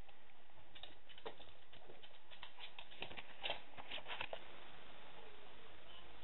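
A small dog's claws clicking and tapping on a hard floor in quick, irregular runs, thickest about three to four seconds in.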